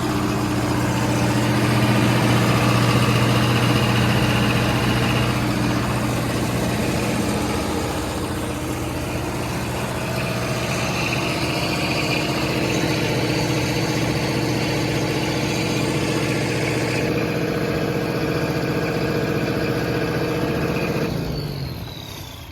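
John Deere diesel engine of a 45 kW generator running at a steady governed speed. The sound dies away near the end.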